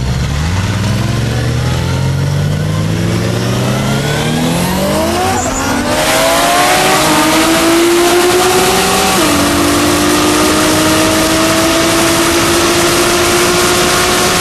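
An engine at full throttle accelerating through the gears. Its pitch climbs steadily and drops sharply at two upshifts, about five and a half and nine seconds in. A loud rushing noise comes in about six seconds in.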